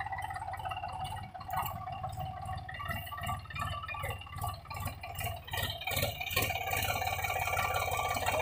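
Sonalika DI 35 tractor's three-cylinder diesel engine running under load as it tries to pull a loaded sand trolley out of soft sand, getting louder about six seconds in.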